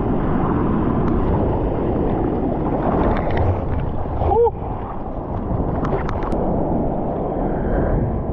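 Seawater sloshing and splashing right at a bodyboard-mounted camera as the rider paddles out through choppy surf, with a short gurgle about four and a half seconds in as the camera dips near the water.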